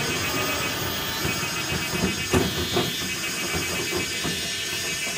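Three-wheeled cargo motorcycle driving away, its engine running steadily, with a couple of sharp knocks about two and a half seconds in.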